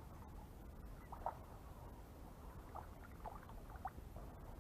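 Quiet outdoor pond ambience: a low steady rumble with a handful of short, faint chirps or squeaks scattered through it.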